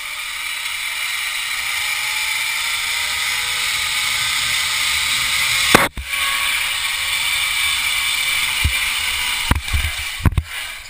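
Zipline trolley pulleys running along a steel cable under the weight of a hanging motorcycle, a steady whirring hiss that grows louder as it picks up speed. A sharp knock cuts through about six seconds in, and a few more knocks come near the end.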